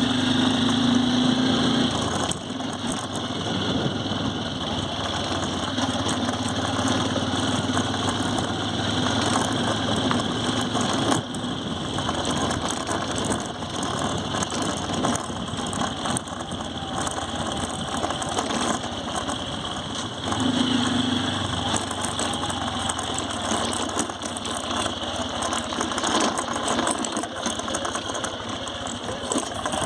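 Honda Livo 110 cc motorcycle's single-cylinder engine running as the bike rides over a rough dirt track, with mechanical rattling from the bike jolting over the bumps.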